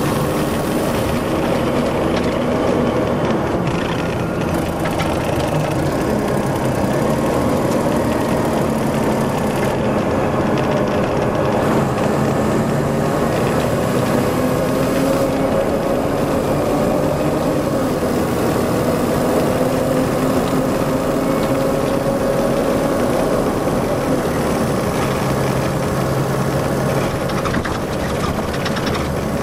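Detroit Diesel Series 60 EGR diesel engine of an MCI D4500 commuter coach running steadily, its pitch slowly rising and falling as engine speed changes.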